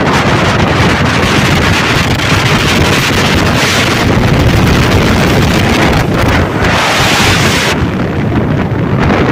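Loud wind rushing over the microphone of a moving motorcycle, swelling twice, about four and seven seconds in, over the low running of a Yamaha Lander 250's single-cylinder engine.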